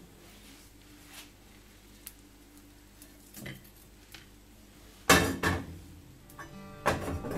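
Kitchen clatter of pots and utensils: a few light clinks, then loud knocks and clanks a little past halfway. Acoustic guitar music comes in near the end.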